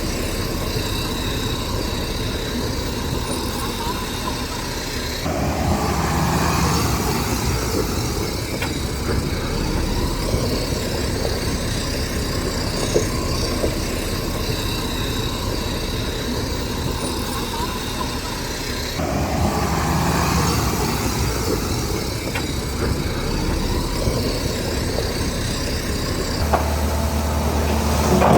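Bulldozer's heavy diesel engine working, its sound swelling twice as the load comes on. A different steady low hum takes over near the end.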